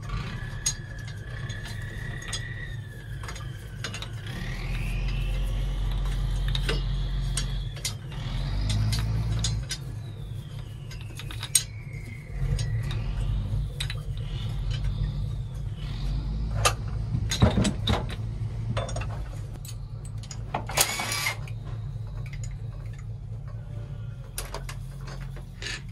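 Hand tools clicking and metal knocking as the valve cover of a Hyundai 6D16 diesel engine is unbolted, over a steady low hum. A whining tone rises and falls several times, and a hiss lasting about a second comes near the end.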